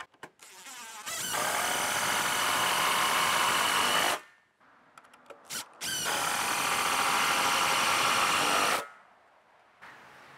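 Cordless driver running twice, about three seconds each time, as it drives screws through small wooden blocks into a framing board.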